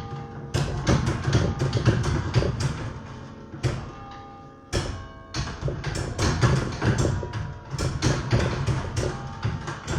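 Church tower bells played by hand in a Christmas carol tune: quick struck notes that ring on and overlap, with a slower, quieter stretch around the middle before the melody picks up again.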